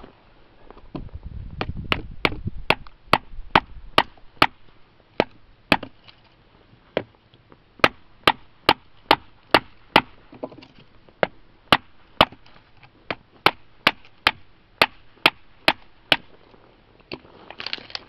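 Wooden baton knocking on the spine of a G-10 and titanium composite knife, driving it through a wooden board: a long run of sharp knocks, about two a second.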